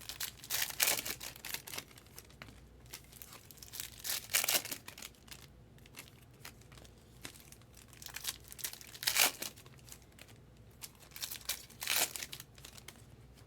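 Foil wrappers of trading card packs crinkling and tearing as the packs are opened by hand, in four separate bursts of crackling.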